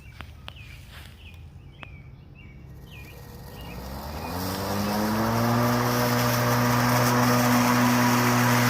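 Hart 20V battery-powered 16-inch push mower's electric motor and blade spinning up with a rising whine about three and a half seconds in, then running at a steady pitch.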